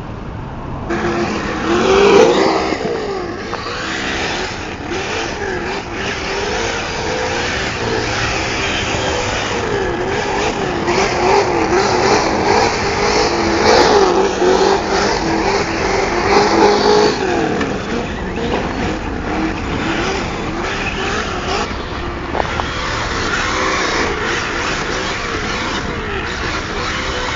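Electric RC truck driving, its motor whine rising and falling quickly with the throttle over a rough scrabble of tyres on gravel; it starts about a second in.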